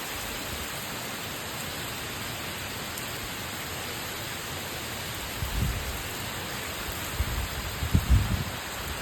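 Steady hiss of heavy rain, with low rumbles of wind gusting against the microphone twice in the second half.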